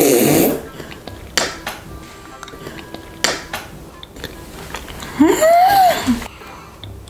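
A loud slurp as jelly is sucked out of a plastic jelly-straw tube, followed by a couple of short sucking smacks. About five seconds in, a brief vocal sound that rises and then falls in pitch.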